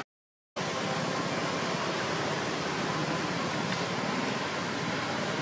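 Steady, even rushing noise, with no calls or distinct events in it, after a brief dropout to silence right at the start.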